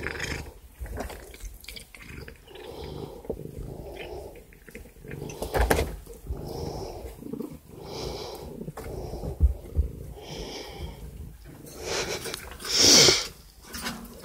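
Tabby cat, high on catnip, making a series of short meows and chirps while being stroked, one every second or two, with a louder, longer one near the end.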